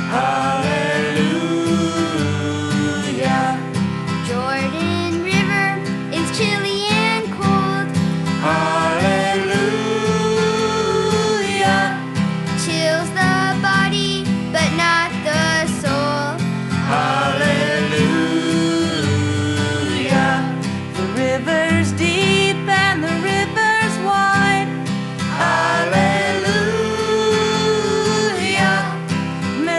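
Music: a folk spiritual with a melody line over strummed acoustic guitar, in a country-folk style.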